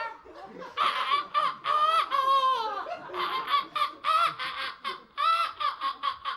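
A quick run of loud seagull-like squawking calls, short harsh cries one after another, starting about a second in.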